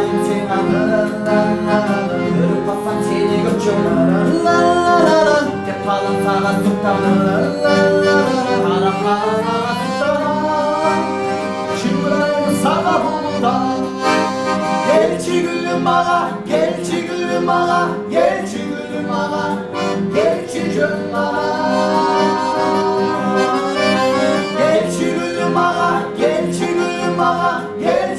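Piano accordion playing a melody over a strummed acoustic guitar.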